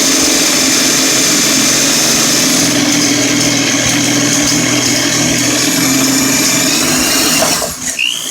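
Electric power tool motor running at a steady speed with a high whine, then let off and winding down near the end.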